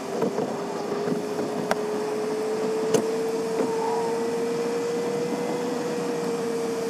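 Vehicle noise: a single steady whine that climbs slowly in pitch over a background of street noise, broken by two sharp clicks.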